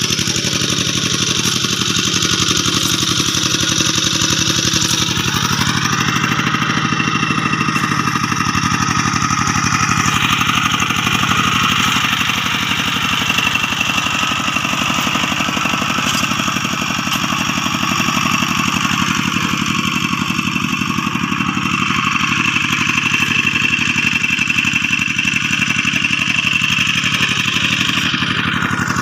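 Two-wheel hand tractor's single-cylinder diesel engine running steadily under load while tilling a rice field, with a fast, even firing beat. The pitch rises slightly about six seconds in.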